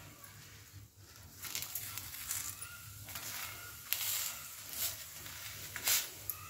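Flat round steel spatula pressing and scraping a folded stuffed paratha against a tawa: a run of short scrapes and taps, the sharpest about six seconds in.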